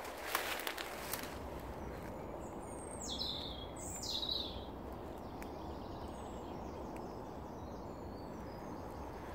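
Woodland ambience: a few footsteps through undergrowth in the first second, then a bird gives two quick falling calls about three and four seconds in, with fainter bird chirps later over steady background noise.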